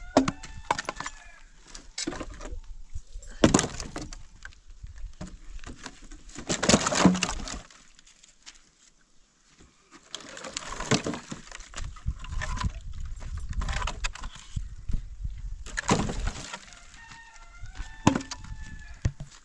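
Firewood logs being pulled from a woodpile by hand, knocking and clattering against each other in a series of separate wooden knocks. There is a short lull partway through. Small birds chirp near the end.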